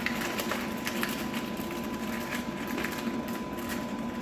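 Light clicks, knocks and rattles of chair parts and loose hardware being handled and moved around in the shipping box, over a steady faint hum.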